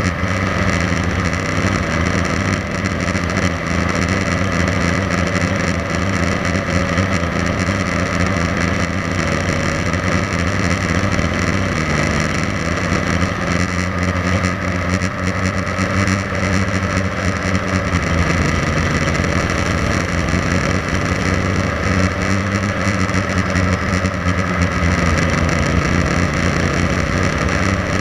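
Blade 350 QX3 quadcopter's four electric motors and propellers buzzing steadily, heard from the camera mounted on the drone. The pitch shifts up and down every few seconds as the throttle changes.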